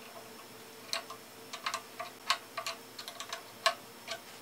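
A wrench working the nut that holds the quill return spring on a King Canada floor drill press: about a dozen light, sharp clicks at uneven spacing, some in quick clusters, over a faint steady hum.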